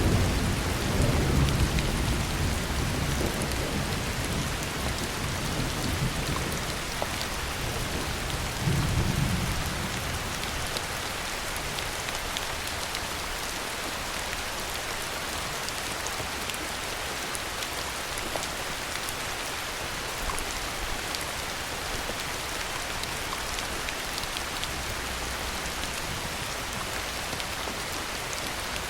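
Heavy rain falling steadily. Thunder rumbles and fades away over the first few seconds, and a shorter rumble comes about nine seconds in.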